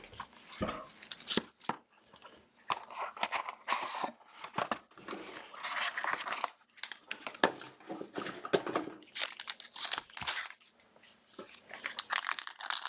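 Trading card pack wrappers crinkling and tearing open, with cards being shuffled and handled in irregular rustling bursts.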